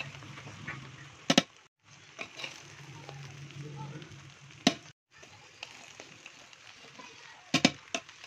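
Slotted metal spoon stirring and turning cooked biryani rice in a metal pot, with a soft scraping and several sharp clinks of the spoon against the pot, two of them close together near the end.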